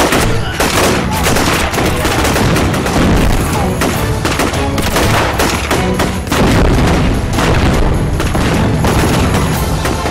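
Gunfight sound effects: dense gunfire, many rifle and pistol shots in quick succession, with a few booms of explosions, over dramatic background music.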